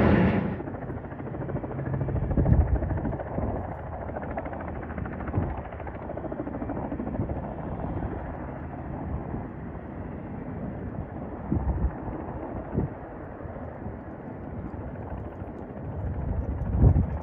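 A loud aircraft cuts off abruptly in the first half-second. It gives way to a steady, distant aircraft engine rumble carrying across the airfield, broken by a few brief low thumps of wind on the microphone.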